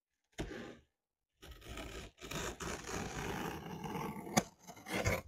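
Open scissor blade drawn along the packing tape on a cardboard box, slitting the tape with a long scraping, tearing sound. A short scrape comes just after the start, and a sharp click about four and a half seconds in.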